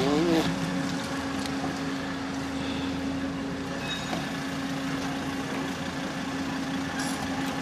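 A van's engine idling close by, a steady low hum.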